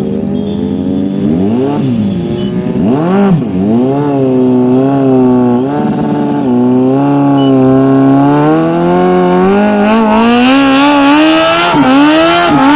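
Motorcycle engine running at riding speed, with two short revs rising and falling in pitch about one and three seconds in, then a steady pitch that climbs gradually over the last few seconds as it accelerates.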